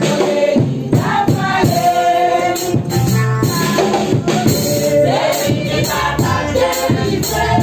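A group of women singing a hymn together, with a percussive beat running under the voices.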